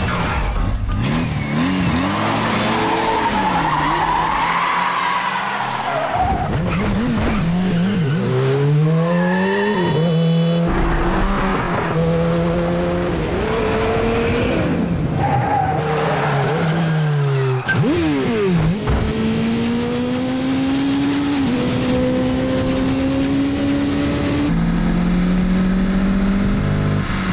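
Car engine revving hard, its pitch climbing and dropping through gear changes, with tyres squealing and skidding in the first half; in the second half the engine pulls up through the gears in long rising steps.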